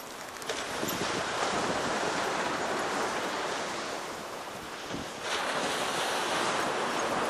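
Steady rushing noise of wind and breaking surf on an open beach, swelling and easing, with a lull about four to five seconds in.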